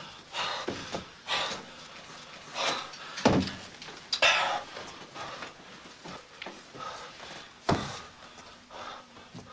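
Short noisy bursts about every second, with two heavy thuds, about three seconds in and again near the end.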